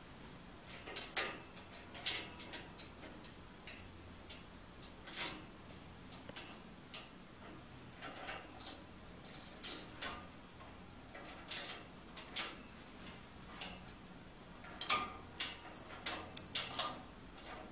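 Irregular light clicks and knocks of hands handling and tightening the black clamp ring and knobs on a glass reactor lid. A quicker run of sharper knocks comes near the end.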